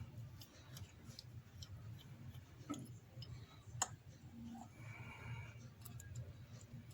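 Faint small clicks and ticks of a precision star screwdriver working tiny screws out of an iPhone X's Face ID camera bracket, with one sharper click a little under four seconds in. A low steady hum runs underneath.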